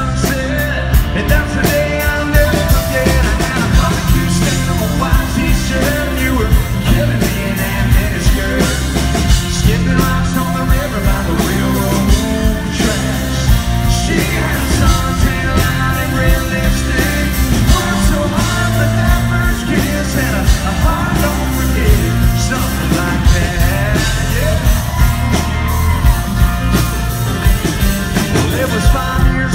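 Live band playing with a male lead singer: a steady drum-kit beat, heavy bass and electric guitar under the sung melody.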